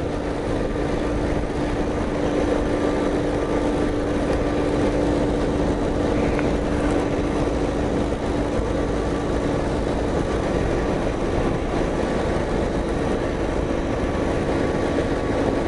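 BMW G 650 GS Sertao's single-cylinder engine running at a steady cruise, its note holding one pitch, under a rush of wind and road noise.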